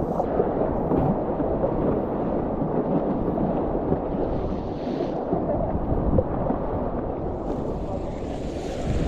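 Whitewater river rapids rushing around a kayak, a dense, steady low rumble with wind buffeting the camera's microphone. A brighter hiss of splashing water comes in briefly around four seconds and again from about seven and a half seconds in.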